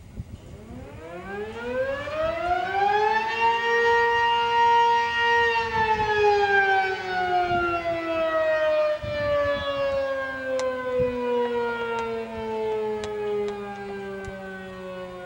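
Sentry 10V2T outdoor warning siren sounding a test blast. It winds up in rising pitch for about three and a half seconds, holds a steady wail for about two seconds, then slowly winds down in falling pitch.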